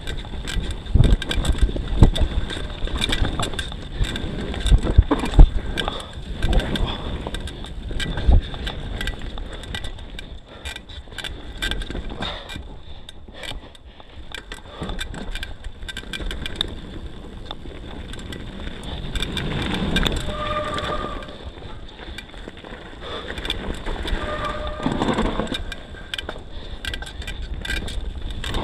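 YT Tues downhill mountain bike rattling and knocking over a rough dirt trail, with chain, suspension and tyre impacts, busiest over the first third. It goes quieter in the middle as the bike slows almost to a stop, and two short high squeals come later on.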